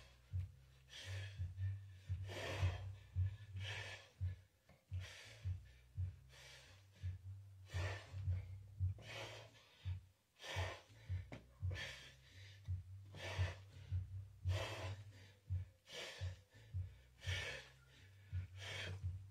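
A man breathing hard and rhythmically through a set of barbell lifts, with a short forceful breath in or out on each rep, about one or two a second.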